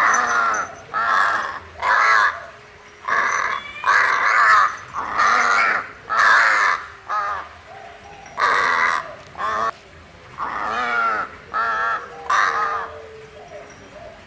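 Crow cawing repeatedly, a long series of harsh caws, each under a second long, coming about once a second at an uneven pace.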